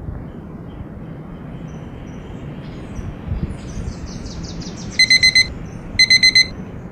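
Electronic alarm clock beeping in quick bursts of four high beeps, starting about five seconds in and repeating about once a second, over a steady background hiss.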